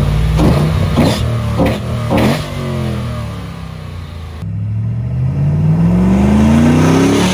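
A Jeep Wrangler JK's swapped-in 6.2-litre LS3 V8, through a Magnaflow exhaust, is revved in about four quick blips, then settles back down. About halfway through, the engine note changes to a steady rise as the Jeep accelerates up the road.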